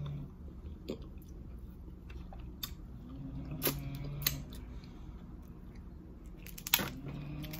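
Dungeness crab being eaten: the shell cracks and crunches in scattered sharp snaps, with chewing in between. A low snore sounds in the background about every three and a half seconds.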